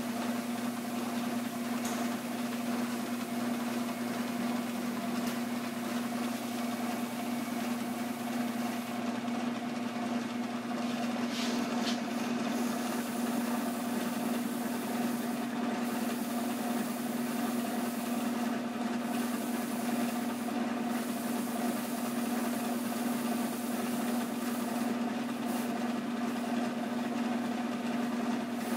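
1996 Nissan Maxima's V6 engine turning steadily, a continuous mechanical hum with a strong single steady tone and no pauses.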